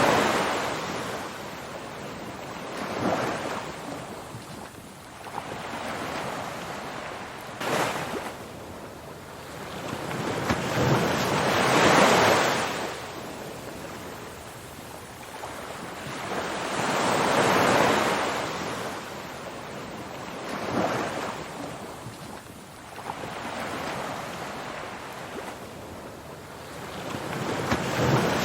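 Ocean surf: waves swelling and washing back, a rise and fall of rushing noise every three to six seconds.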